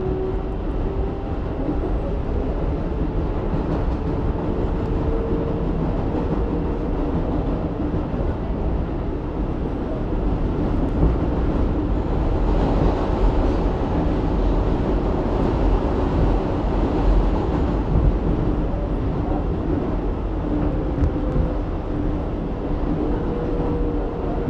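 R188 subway train standing at an underground platform with its doors open, giving off a steady hum and low rumble that swells a little midway.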